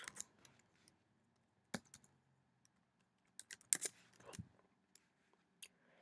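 Scattered computer keyboard keystrokes: a couple of isolated taps, then a quick run of about five near the middle, with quiet in between.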